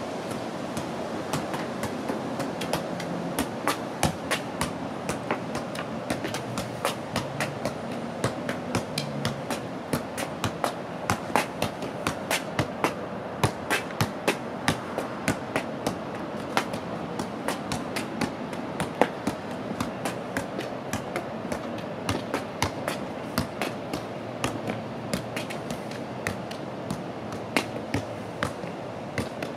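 A soccer ball being juggled, kicked up again and again with the foot: a long run of sharp thuds, about two or three touches a second, over a steady background hiss.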